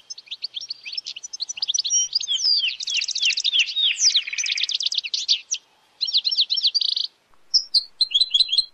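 Canary singing a fast, varied song of chirps, falling sweeps and rapid trills, broken by short pauses in the later part.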